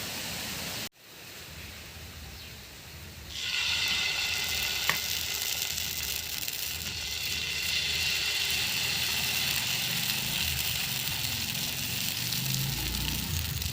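Adai (rice batter flatbread with climbing brinjal leaves) frying in oil on a hot pan, sizzling steadily. The sizzle comes up about three seconds in and then holds, with a single small tick a little later.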